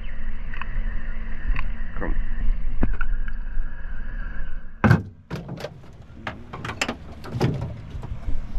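A steady low hum with a few faint clicks, which breaks off about five seconds in. A run of sharp knocks and clicks follows, the first of them the loudest.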